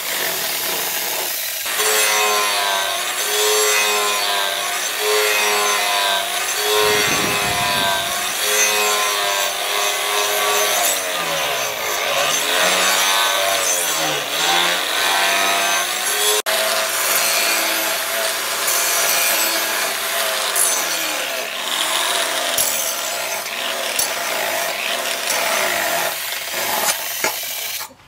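Handheld electric angle grinder running under load, its disc grinding the leaf-spring steel of a billhook. The motor's pitch wavers up and down as the disc is pressed on and eased off, and it cuts out near the end.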